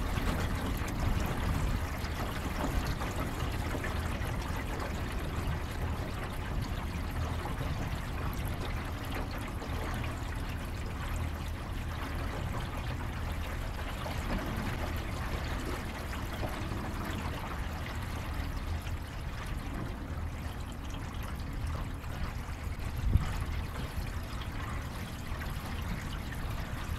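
Water lapping and trickling against the hull of a small jon boat, with a steady low rumble underneath and one short louder noise near the end.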